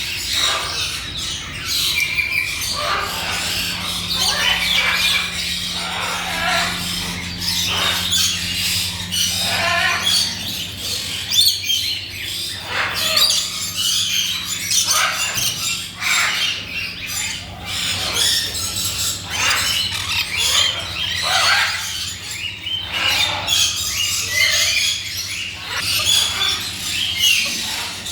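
Many birds chirping and squawking at once, with overlapping calls and no pause, over a steady low hum.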